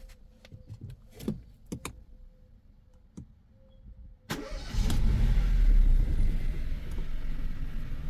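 Peugeot 208 engine started by push button, heard from inside the cabin: a few clicks, then about four seconds in it cranks and catches, flares up briefly and settles to a steady idle.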